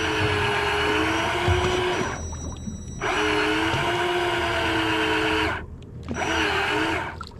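Electric deep-drop reel motor winding line in with a steady whine, as the rig comes up through the last few metres. It stops about two seconds in, runs again for about two and a half seconds, then runs briefly once more near the end.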